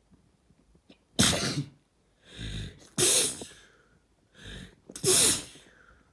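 A person sneezing three times in a row, about two seconds apart. Before the second and third sneezes comes a sharp, audible intake of breath.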